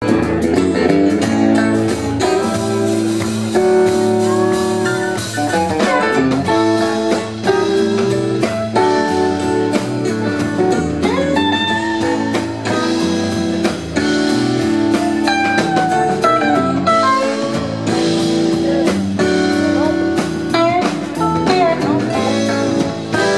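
Live rock band playing an instrumental passage on electric guitars, electric bass and drum kit, with a lead guitar bending notes over the rhythm.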